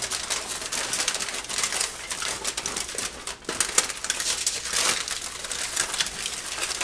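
Aluminium foil crinkling and crackling as it is pulled up and folded around a rack of ribs.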